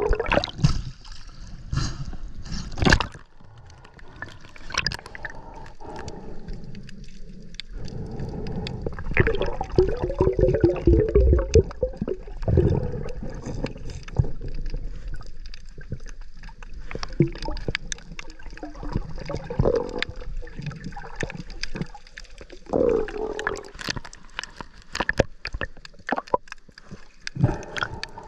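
Water sloshing and gurgling in irregular swells, with scattered short clicks and knocks.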